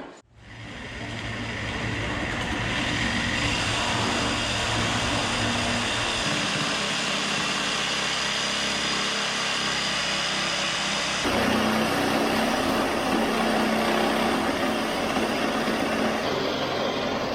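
A motor running steadily, building up over the first couple of seconds and then holding an even level, with abrupt changes in its sound about six and eleven seconds in.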